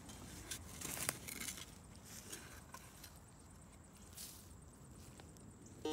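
Faint, scattered scrapes and clicks of hand digging in soil and roots, with a small cluster about a second in.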